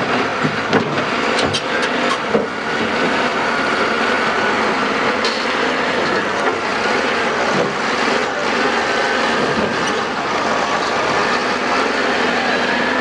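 Diesel engines of heavy quarry machinery running steadily, with a few sharp knocks in the first couple of seconds.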